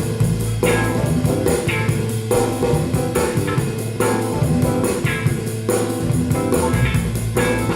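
Instrumental music played back through a JBL Studio 280 three-way floorstanding loudspeaker: a drum kit keeping a steady beat under guitar and horns, with no singing.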